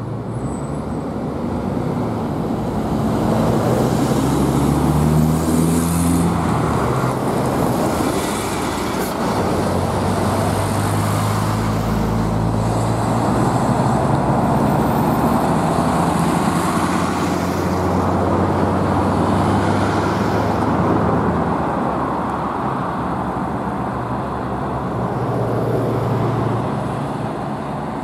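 City buses pulling away and accelerating, their engine note rising in pitch over the first several seconds. The engines then settle into a steady drone under general road traffic noise, which swells again near the end as another bus approaches.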